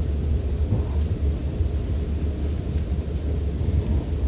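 Steady low rumble of background noise, with no other distinct sound.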